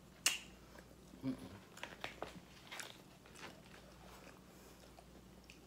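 Close-miked chewing of loaded French fries: a sharp mouth click just after the start, then a string of smaller chewing clicks that fade out over the next few seconds.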